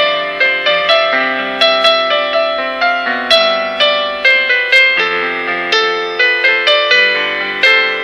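Background piano music: a melody of struck notes, each starting sharply and fading away.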